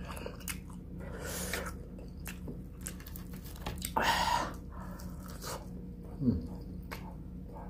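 Close-up eating sounds: open-mouthed chewing with small wet mouth clicks, broken by hard breaths blown out through the mouth, the loudest about four seconds in, from the heat of extra-spicy Samyang noodles. A short falling grunt comes near the end.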